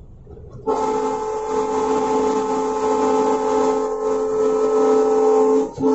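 Locomotive horn sounded from inside the cab: a loud, steady chord of several notes held for about five seconds, cut off briefly and sounded again for a short blast near the end. Before it starts, a moment of lower train running noise.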